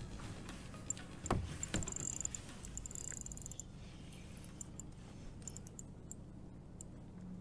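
Handling noise from fishing gear in a kayak while a hooked pike is played on a bent rod: two dull knocks a little over a second in, then a soft rustle. Light, quick ticking follows from about halfway through, typical of a spinning reel being worked.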